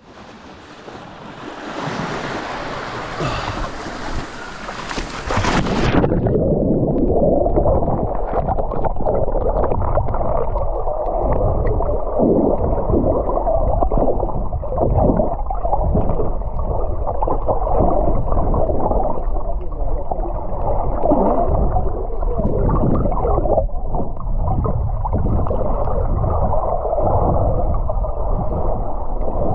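Sea water sloshing and splashing at the surface, then about six seconds in the sound turns abruptly muffled as the microphone goes underwater: a low underwater rumble with irregular gurgling surges of moving water.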